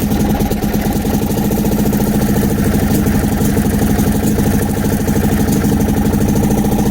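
40hp Gale two-stroke outboard motor running steadily with an even, rapid beat, just after catching on its electric starter. It is its first run after being revived, with the idle not yet adjusted.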